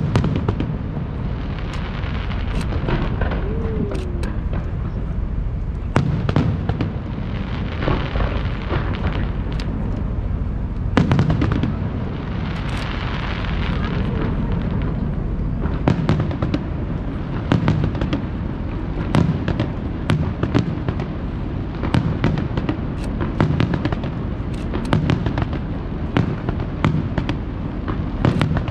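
Aerial fireworks shells bursting in a steady sequence: many sharp bangs, each followed by a low echoing rumble, with several spells of dense crackling from crackle-effect shells.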